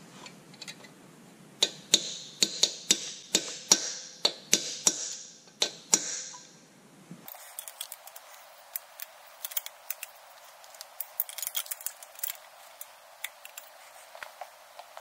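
A run of light, sharp metallic taps, roughly two a second for about four seconds, each ringing briefly: a brass drift being tapped to bend a locking washer's tab over a freshly torqued nut. After an abrupt change about halfway through, only faint small clicks of metal parts being handled.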